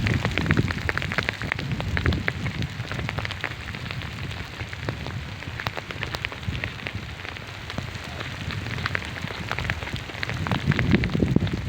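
Heavy rain falling, many separate drops striking as sharp ticks over a steady hiss, with a low rumble that grows louder near the end.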